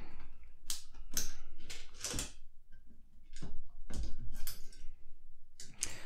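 Plastic mechanical keyboard switches on a Keyboardio Model 01 plate being worked by hand: about eight irregular sharp plastic clicks and clacks as the switch housings are pressed and prised with the fingers.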